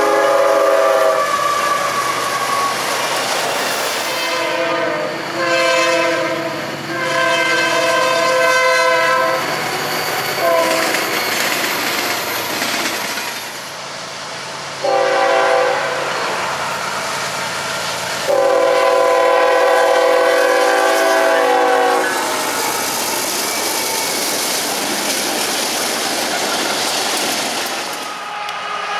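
Diesel freight locomotive air horns sounding several blasts, each a chord of several notes at once: one ending about a second in, two long ones in the first third, a short one around the middle and a long one soon after. In between, the steady rumble and wheel clatter of freight trains passing.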